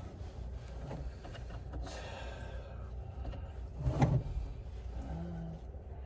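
Handling noises from wooden panels and hardware: a sliding scrape around two to three seconds in and a short knock about four seconds in, over a low steady hum.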